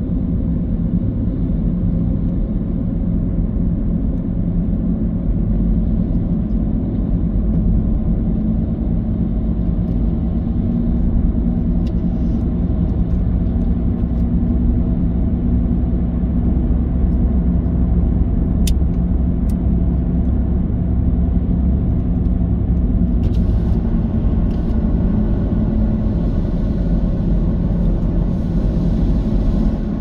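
Car driving on the road, with a steady low rumble of engine and tyres. Two short clicks come a little past halfway, and a hiss rises near the end.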